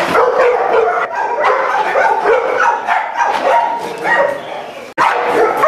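American Bulldog barking rapidly and continuously, an aggressive outburst guarding its food bowl: a sign of severe food aggression. The barking breaks off for an instant about five seconds in and resumes.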